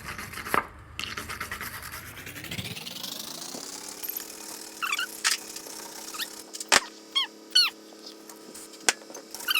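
Wire brush scrubbing rust off the flywheel of a two-stroke Lawn-Boy mower engine. A whir rises in pitch over the first few seconds and then holds steady. Sharp clicks and short falling squeaks come over it in the second half.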